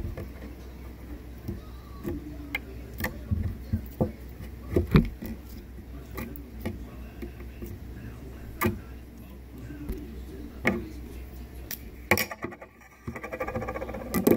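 Clear slime squeezed and poked by fingers, making irregular sharp clicks and pops over a low steady hum. A denser stretch of rustling comes near the end.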